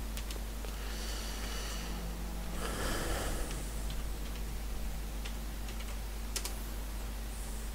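Computer keyboard typing: scattered, faint keystrokes over a steady low electrical hum, with a soft breath-like rush about three seconds in.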